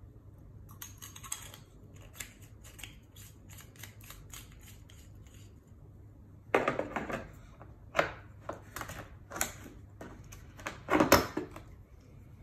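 Small clicks and scrapes of a handheld flashlight being twisted apart and handled, then louder knocks and rattles of tools against a moulded plastic tool case, the loudest a little after eleven seconds in.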